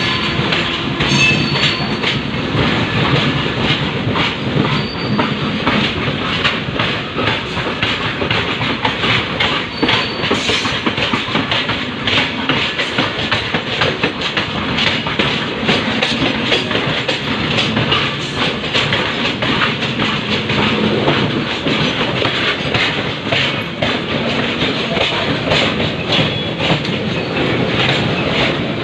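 Express passenger train running at speed, with a steady rumble of the coach and the rapid clickety-clack of wheels passing over rail joints.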